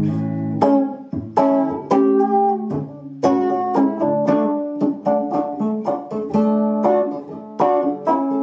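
Two-knob Fender Stratocaster electric guitar played through a run of picked chords and single notes, each with a sharp attack and ringing sustain. The 5-way selector sits in the second position (neck and middle pickups) with the tone control turned fully anti-clockwise, the setting meant to give a bassier sound.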